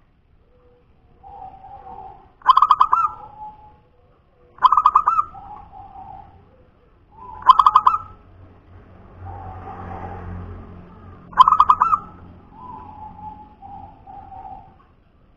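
Zebra dove (perkutut) singing: four phrases, each a quick run of stuttering notes followed by a few softer, lower coos.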